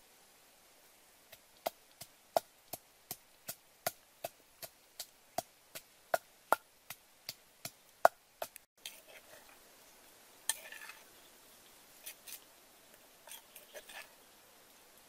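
Wooden pestle pounding in a wooden mortar, a steady series of sharp knocks at about three a second. A little after the middle they stop, and a few lighter, uneven clatters and scrapes follow.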